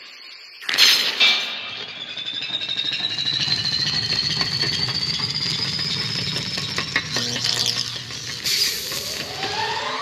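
Science-fiction film sound effects heard through a television's speakers: two sharp hits about a second in, then a long, steadily rising electronic whine laced with rapid metallic clicks. A second, lower whine rises near the end.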